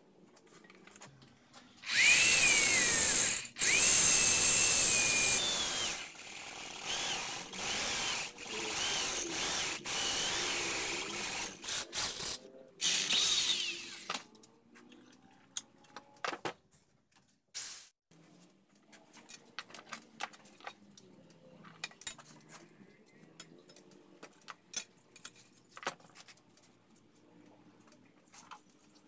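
A power tool running loudly for about twelve seconds, stopping and restarting several times, with a faint squealing whine over its noise. Light clicks and knocks follow.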